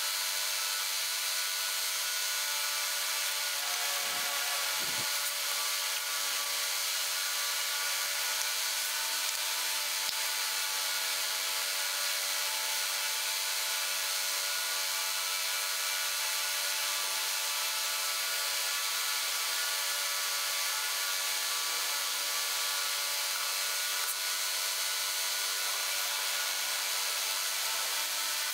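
A steady mechanical whir with a few constant hum tones, typical of an electric fan running, and a couple of faint knocks about four to five seconds in.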